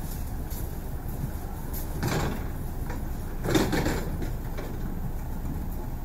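ED4M electric multiple unit running, a steady low rumble of the running gear heard from inside the passenger car. Two brief louder swells of noise stand out, about two seconds in and again about three and a half seconds in.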